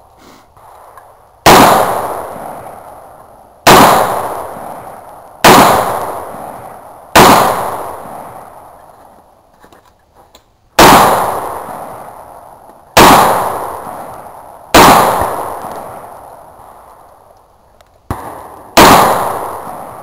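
Eight gunshots fired one at a time, about two seconds apart, each followed by a long echoing decay. A fainter pop comes just before the last shot.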